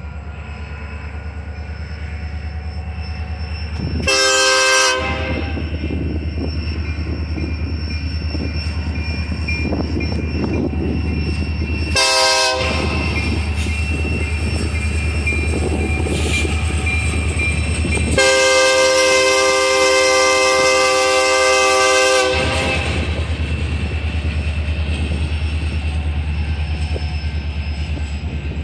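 Union Pacific diesel freight locomotive running past with a steady low engine rumble and rolling wheel noise. Its multi-chime air horn sounds three times: a blast of about a second, a short toot, then a long blast of about four seconds.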